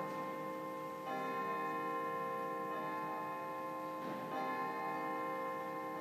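Church organ playing held chords, moving to a new chord about every second and a half, as the introduction to an entrance hymn.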